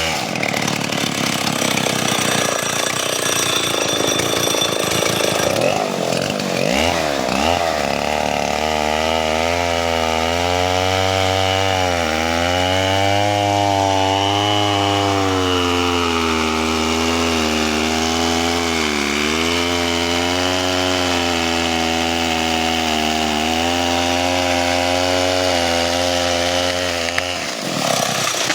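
Chainsaw running at high revs while cutting into a tree trunk, its engine pitch wavering up and down as the chain loads and frees in the wood.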